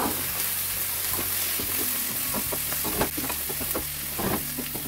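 Chopped tomatoes sizzling in hot oil with fried onions, ginger and garlic in a nonstick frying pan while a wooden spoon stirs and scrapes them. The spoon knocks against the pan a few times, loudest about three seconds in and again just after four.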